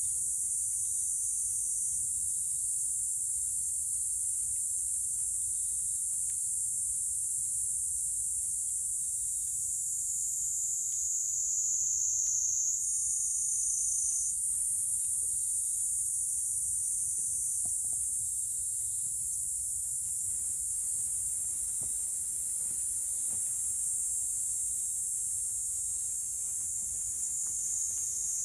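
Steady high-pitched insect chorus, a continuous shrill trilling that shifts a little in pitch now and then.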